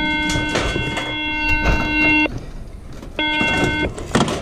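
A steady electronic beep tone holds for about two seconds, stops, and sounds again briefly near the end. Scattered knocks and scrapes from boots stepping on loose roof tiles and fibre-cement roofing sheets run beneath it.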